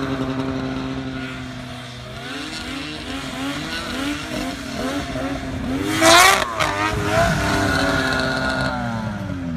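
Two-stroke snowmobile engines running: a steady drone at first, then the throttle rising and falling from about two seconds in. A sharp, loud rev comes about six seconds in, and the pitch drops near the end.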